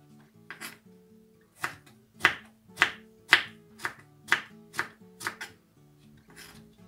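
Kitchen knife chopping eggplant into strips on a wooden cutting board: about ten sharp knocks of the blade through the flesh onto the board, roughly two a second, with a pause near the end before one last softer stroke.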